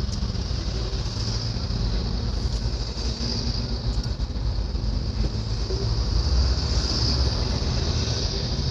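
Steady road noise heard from inside a moving car on an expressway: a low tyre and engine rumble with a steady hiss, a little louder about three-quarters of the way through as a box truck runs alongside.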